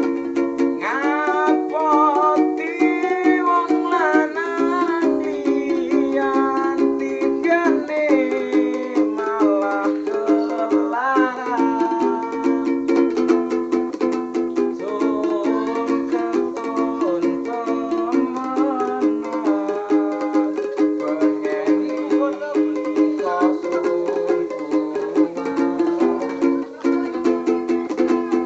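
Street musicians playing a song: fast, even strumming on small ukulele-like strings with a wavering, sliding lead melody over it.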